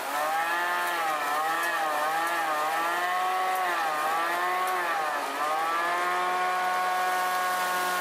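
Spray-injection pothole patcher running while its nozzle blows bitumen-coated aggregate into a pothole. Its pitch dips and recovers every second or so, then holds steady from about six seconds in.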